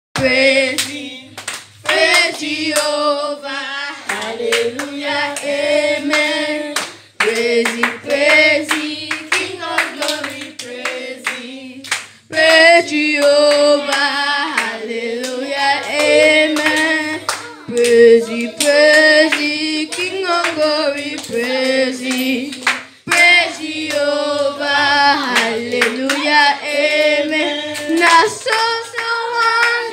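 A young girl singing a children's church song into a handheld microphone, with hand claps along with it.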